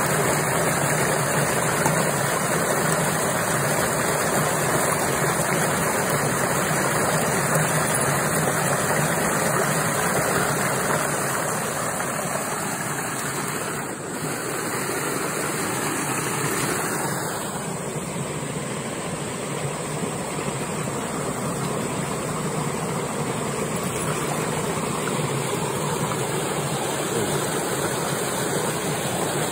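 Fast water rushing and churning down a narrow concrete channel, a steady roar of running water that turns a little softer and duller a bit past the middle.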